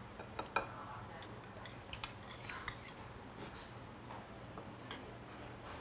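Metal spoon and chopsticks clinking against a metal rice bowl and dishes: a handful of light, sharp clicks, the loudest about half a second in. A low steady hum runs underneath.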